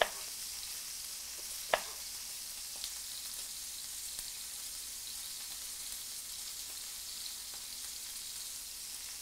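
Pork belly frying in a pan with a steady sizzling hiss. A knife knocks on a plastic cutting board while slicing kumquats, once at the start and again, louder, just under two seconds in.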